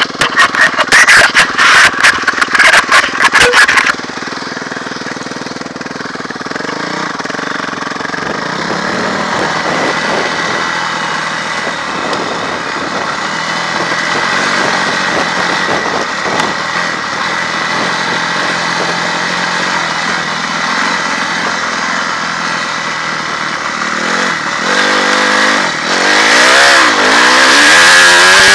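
Honda CRF250R motocross bike's four-stroke single-cylinder engine heard from the rider's helmet. A few seconds of loud rapid clattering open it, then the engine runs with a steady note that builds gradually, and near the end it revs up and down repeatedly as the bike accelerates along the track.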